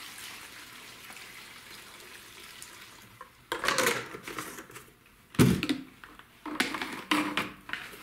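Gasoline pouring from a jug through a plastic funnel into a lawnmower's fuel tank, a steady liquid rush for about three and a half seconds. Then come several clatters and a loud thump about five and a half seconds in.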